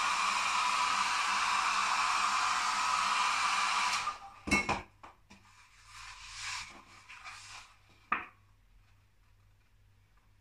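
Small hand-held hair dryer blowing steadily, switched off about four seconds in. Then a sharp knock, a few light handling sounds and a click about eight seconds in.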